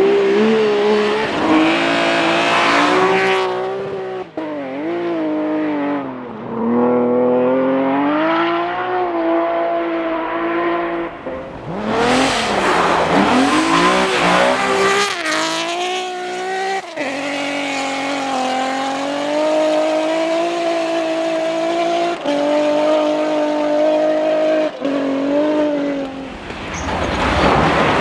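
BMW rally car engine at high revs on a rally stage, its pitch climbing and dropping with gearshifts and lifts, with some tyre squeal. It passes loudest about twelve seconds in, holds steady high revs later on, and a fresh swell of car noise builds near the end.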